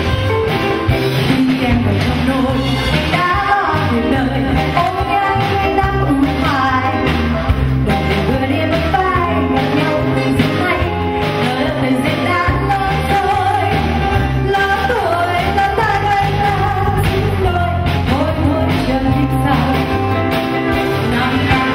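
Live band playing an upbeat pop song on drum kit, bass guitar and keyboards, with a steady beat.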